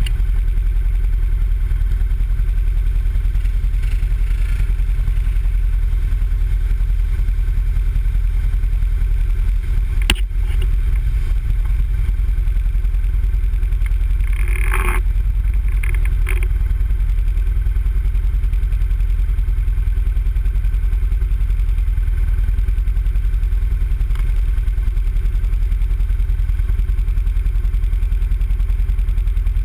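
Can-Am Renegade ATV engine idling steadily. There is a brief sharp click about ten seconds in and a short louder noise about fifteen seconds in.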